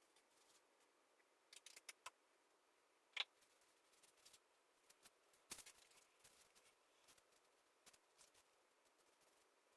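Near silence with a few faint, scattered clicks; the sharpest comes about three seconds in.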